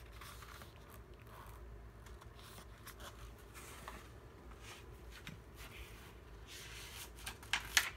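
Pages of a paperback picture book being handled and turned, soft paper rustling with the loudest rustles near the end.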